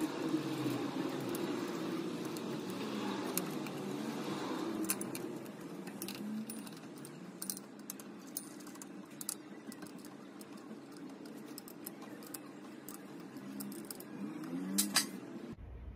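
Chrome bar-stool column being twisted and worked in the seat's metal mounting plate: metal clinks and ticks over a steady rubbing scrape with short squeaks, busiest in the first few seconds, and two sharper clicks near the end.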